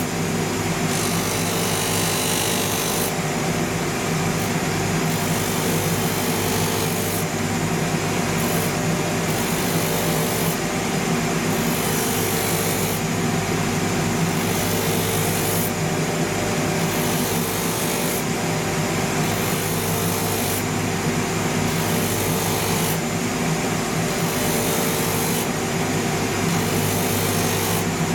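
Rotary sandpaper wheel of a shoe-finishing machine sanding the grain surface off a leather outsole. A steady machine hum runs under a gritty rasp that swells and fades every two to three seconds as the sole is pressed to the wheel and eased off.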